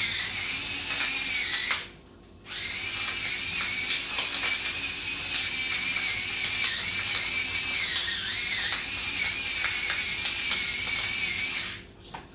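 Battery-powered electric spice grinder whirring in two runs, with a short stop about two seconds in, a dip in pitch around eight seconds, and a cut-off near the end. The motor hums weakly because its batteries are running low.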